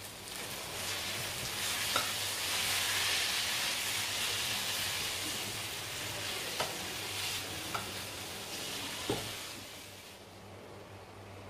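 Flat rice noodles sizzling in a hot non-stick wok as they are stirred with a metal slotted spatula, with four sharp clacks of the spatula against the pan. The sizzle dies down near the end as the stove is turned off.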